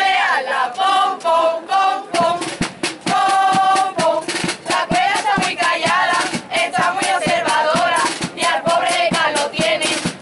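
A carnival group singing a song together in chorus. From about two seconds in, a steady beat of sharp knocks or claps keeps time under the voices.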